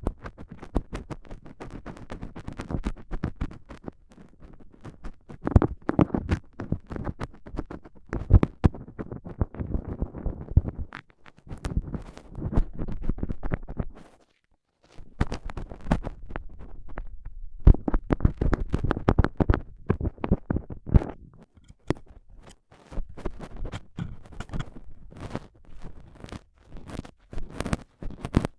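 Stainless steel dental tool scraping and tapping inside an ear for ear-cleaning ASMR. A dense run of scratches and sharp clicks with heavy low thuds, pausing briefly about halfway through.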